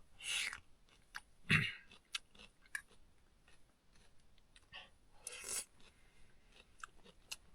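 A person chewing a mouthful of stir-fried cucumber and egg: crisp cucumber crunching with small wet mouth clicks, and three short louder bursts of noise, about half a second, a second and a half, and five and a half seconds in.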